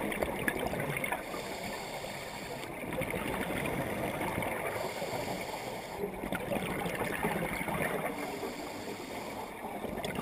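Scuba regulator breathing underwater, with exhaled bubbles gurgling in a slow repeating cycle every few seconds.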